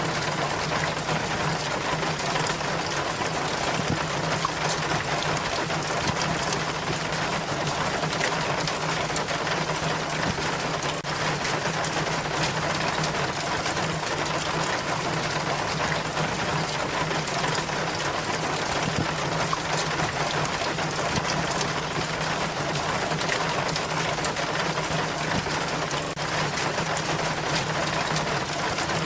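Rainwater running and splashing steadily down a rain chain in heavy rain, an even unbroken rush of water.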